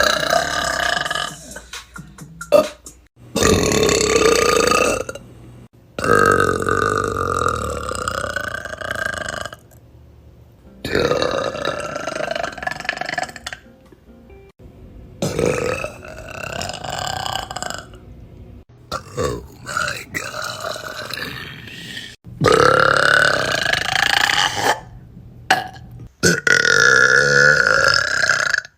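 Young women belching loudly, one long drawn-out burp after another, about six in all, each lasting one to three seconds with abrupt breaks between them.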